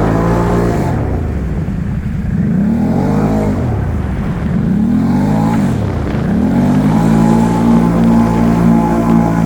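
Can-Am ATV engine revving, its pitch swooping up and falling back several times, then held high near the end.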